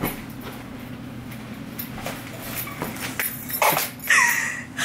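Feet thumping on a floor a few times as a person runs and kicks about, then near the end a loud, high excited squeal that falls in pitch, over a steady low hum.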